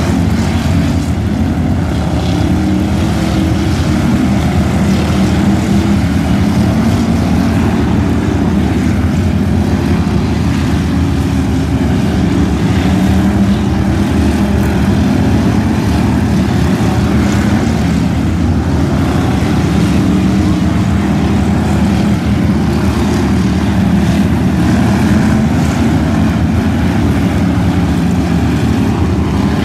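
Several stock car engines running on a dirt track, a loud, continuous drone whose pitch wavers up and down as the cars accelerate and pass.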